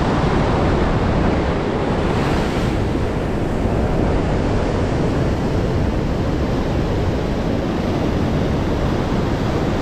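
Rough sea surf breaking and washing over shore rocks in a steady, loud rush, with wind buffeting the microphone.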